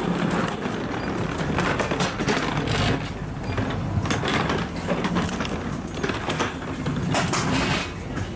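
Footsteps and a hard-shell rolling suitcase's wheels moving along a jet bridge floor, with irregular knocks and clatter over a steady low hum.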